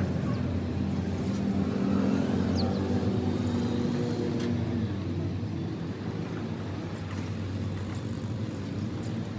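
An engine running steadily, a little louder for the first few seconds and then easing slightly.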